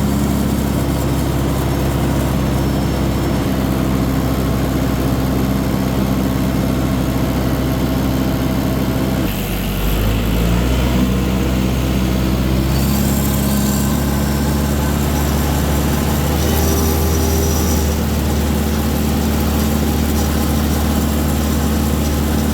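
Tractor engine running steadily at close range. About nine seconds in the note dips briefly, then picks up again at a slightly different pitch.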